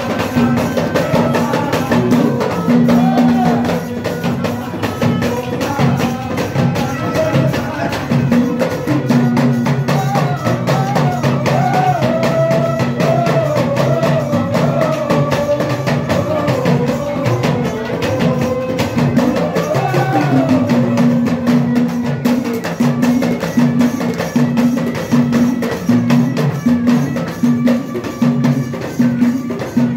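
Devotional bhajan music played on deru drum, clay pot (ghada) and Indian banjo: steady, busy percussion strokes under a held low drone, with a wavering melody rising and falling through the middle.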